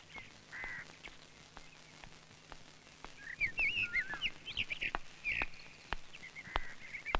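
Birds chirping, with a cluster of quick, twisting calls in the middle, over regular soft footsteps at about two a second.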